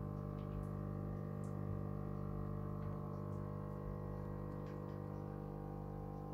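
Air pump of a lit bubble tube lamp humming steadily, with a few faint ticks.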